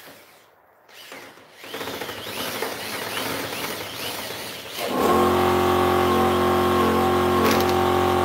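Corded electric drill driving screws into a PVC window frame, a fairly low whir at first. About five seconds in, a much louder, steady motor hum with several fixed pitches starts and holds.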